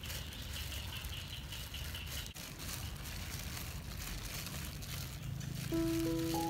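Plastic-gloved hands kneading mashed purple taro with tapioca starch in a stainless steel bowl: rustling and crinkling of the gloves with soft squishing of the dough. Music comes in near the end.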